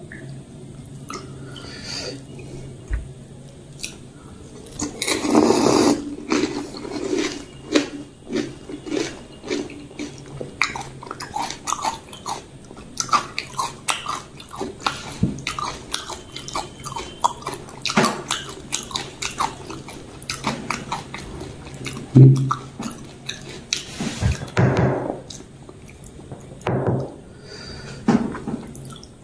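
Close-miked chewing of pani puri: the crisp, hollow puri shells crunching with irregular clicks and crackles, with louder crunching about five seconds in and again near twenty-five seconds.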